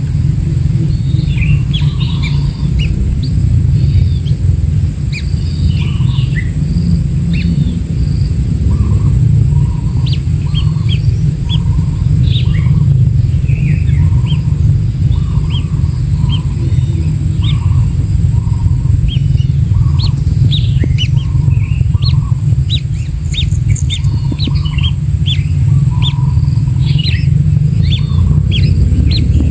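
Many short, high bird chirps and quick down-sweeping notes throughout, over a steady low rumble, with a faint steady high whine.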